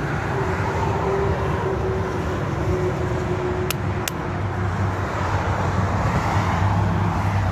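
Steady road traffic noise with a vehicle engine hum that grows louder in the second half. Two light clicks near the middle.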